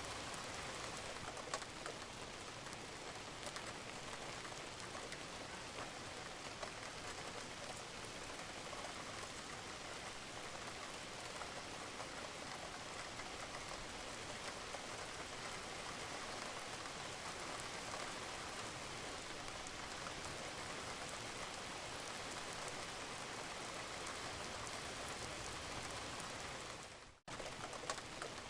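Steady rain falling on a roof, with scattered drops and drips. Near the end the sound fades out briefly and cuts back in.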